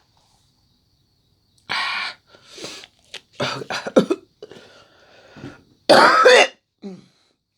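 A woman coughing and clearing her throat in a run of short, loud coughs, the strongest about six seconds in, choking on food she made too spicy.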